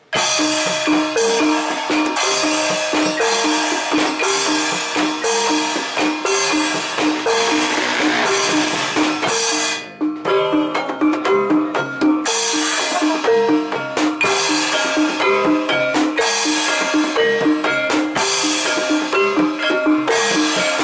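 Javanese gamelan accompaniment for a jaranan dance: drums with metallophones struck in a fast repeating pattern of short notes. There is a brief break about ten seconds in.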